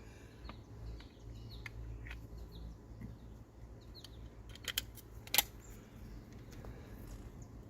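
A sharp pop from a CO2-powered airsoft pistol firing a single shot a little over five seconds in, just after a pair of light mechanical clicks. Small birds chirp faintly throughout.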